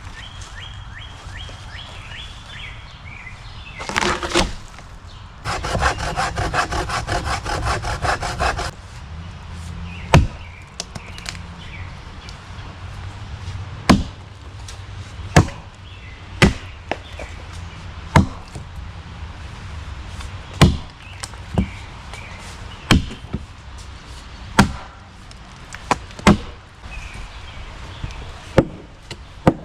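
Hand tools working a log: about three seconds of quick sawing strokes, then about a dozen sharp axe chops into the wood, spaced a second or two apart, cutting a notch.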